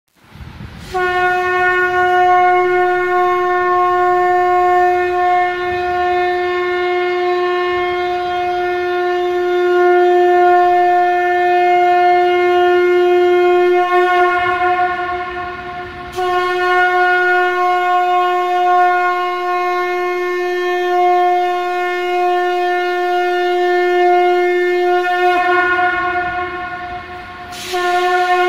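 Conch shell (shankh) blown in long, steady blasts on one held note with strong overtones: a first blast of about thirteen seconds, a second of about nine seconds after a short break, and a third starting near the end.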